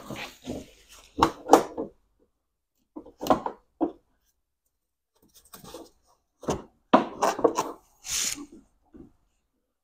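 A BMW X1 headlight unit being handled and worked into place on the front end: scattered knocks, rubs and clicks of plastic against the panel. Near the end comes a brief scrape.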